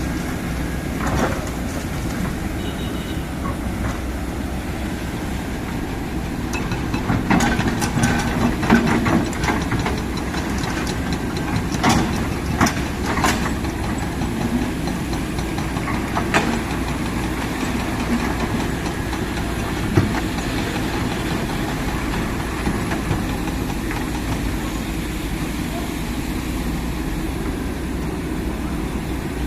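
Kobelco SK200 hydraulic excavator's diesel engine running steadily, with several sharp metallic clanks in the middle stretch.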